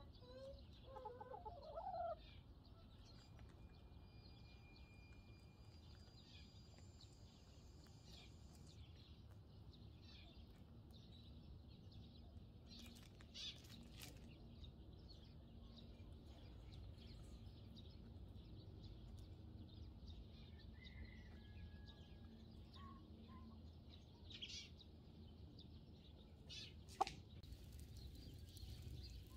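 Hens foraging on gravel, mostly very quiet: one hen gives a short rising call in the first two seconds. After that there are only faint distant bird chirps, a few soft scratches and a single sharp click near the end.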